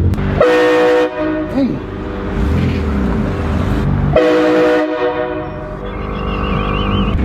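Train horn blasting two short chords, each under a second, about four seconds apart, with a low vehicle rumble between them.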